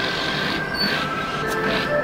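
Background music with held notes that shift from chord to chord.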